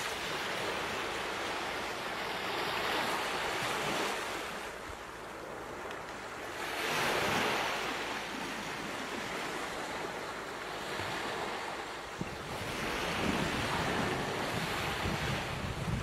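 Ocean surf: waves washing in and drawing back, the rush swelling and fading every five to six seconds.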